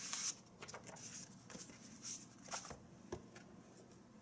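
Faint handling noises of a cardboard box being moved about: short rustles at the start and again around two seconds in, with scattered light taps and clicks.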